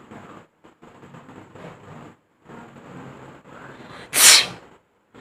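A woman sneezes once, sharply and loudly, about four seconds in. Before it, quieter breathy sounds come and go.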